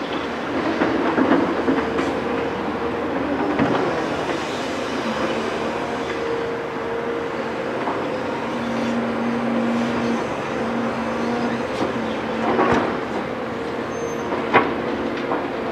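Caterpillar 336 hydraulic excavator working: its engine and hydraulics run with a steady tone while it dumps a bucket of soil into a tipper truck, swings back and digs into a pile of earth. Metallic clanks and knocks come from the bucket and machine, the loudest soon after the start and a sharp knock near the end.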